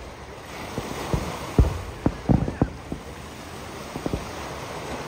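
Distant aerial fireworks shells bursting in a quick run of booms over the first three seconds, the loudest about a second and a half in, then two more close together near the end, over a steady hiss.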